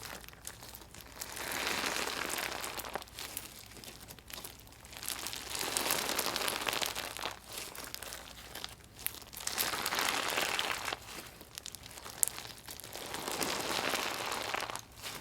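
Gritty, crunchy slime being pressed and kneaded by hand, giving a dense fine crackling. It swells in four slow pushes about every four seconds, with lighter crackling in between.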